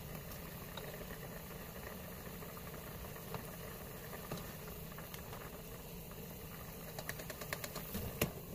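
Pot of seafood boil bubbling steadily at the boil, with a few light clicks and knocks near the end.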